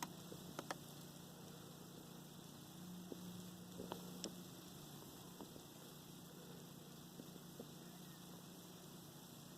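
Near silence: a faint steady hum with a few soft, short ticks scattered through it.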